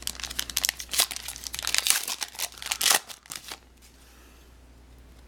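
Plastic or foil trading-card packaging crinkling and rustling as it is handled, a dense irregular crackle that stops about three and a half seconds in.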